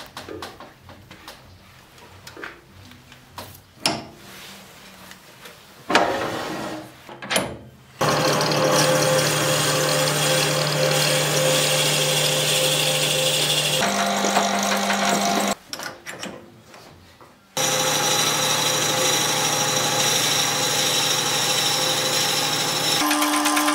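Scattered clicks and knocks at first, then a JET JWL-1443 wood lathe starts about eight seconds in and runs with a steady hum and whine while a drill bit in a tailstock chuck bores into the end of the spinning wood blank. The sound cuts out for about two seconds partway through and resumes, its pitch stepping up twice.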